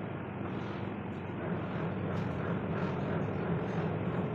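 Steady hum and rumble of a ship's machinery running, with a few faint clicks on top.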